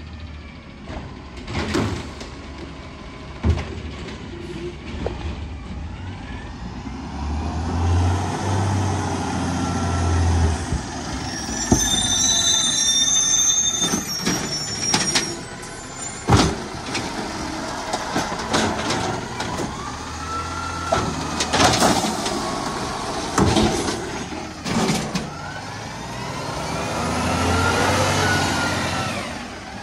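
Automated side-loader garbage truck at a curbside stop: the diesel engine runs and revs, a high brake squeal sounds about 12 seconds in, and several sharp clanks follow as the arm works the cart. Near the end the engine rises in pitch as the truck pulls away.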